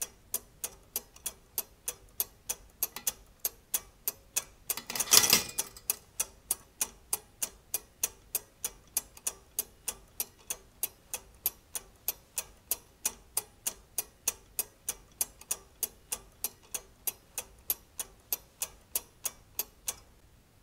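Escapement of a weight-driven brass and steel clockwork mechanism ticking steadily, about two ticks a second. About five seconds in there is a brief, louder burst of noise, and the ticking stops near the end.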